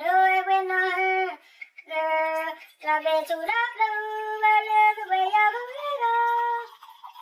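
A woman's voice singing alone, unaccompanied, in long held high notes with a few short breaks. It stops shortly before the end.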